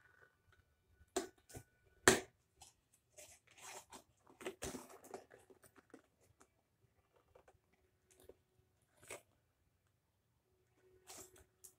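Cardboard toy box being handled and worked open by hand: scattered rustles and clicks of the packaging, the loudest a sharp crack about two seconds in.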